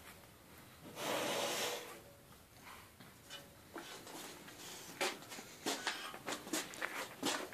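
Handling noises from a small metal motorcycle fuel tank: a brief swish about a second in, then a run of light clicks and knocks as the tank and its metal filler cap are moved and fiddled with.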